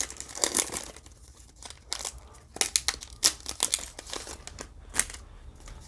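Foil Pokémon booster pack wrapper crinkling as it is handled and torn open, a string of irregular sharp crackles, busiest in the first half second.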